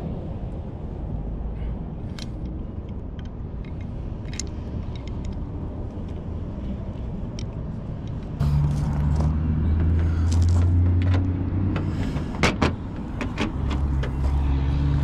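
Small metal parts clicking and clinking as a metal lock plate with studs is handled, over a steady low rumble. About eight seconds in a louder low drone starts. It drops out briefly near the end, where there are two sharp knocks, then comes back.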